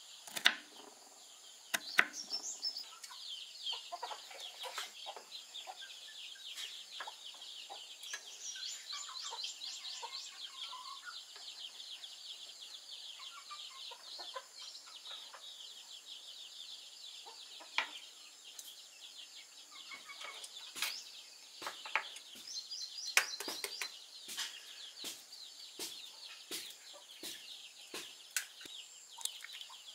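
Kitchen knife chopping pineapple on a wooden cutting board: sharp knocks at irregular intervals. Behind them, chickens cluck and a steady high-pitched chirping goes on.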